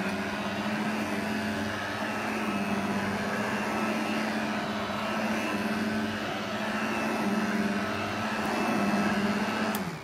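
1988 Royal 501 metal hand vacuum's small one-speed motor running with a steady hum and rush of air as it is worked over carpet, then switched off just before the end and winding down.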